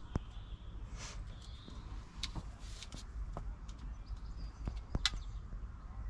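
Scattered light clicks and short rustles of speaker wire and small crimp connectors being handled and worked by hand, over a low background rumble.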